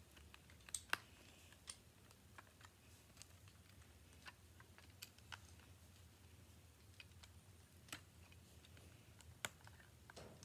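LEGO bricks clicking as small plastic pieces are handled and pressed together: faint, short, irregular clicks, roughly one or two a second.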